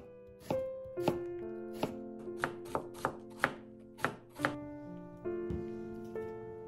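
Kitchen knife slicing daikon radish on a wooden cutting board: a dozen or so sharp, irregular strokes that stop about five seconds in. Soft background music with held, piano-like notes plays under the strokes throughout.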